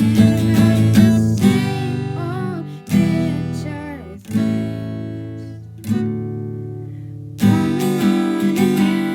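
Acoustic guitar strummed, a chord struck about every second and a half and left to ring and fade before the next.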